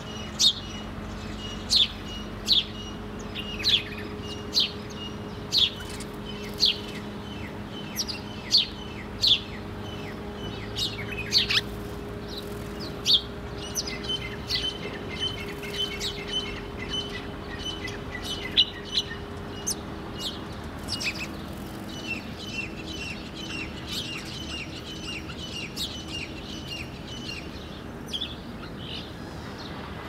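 House sparrows chirping: a sharp chirp about once a second for the first dozen seconds, then quicker, softer chirping.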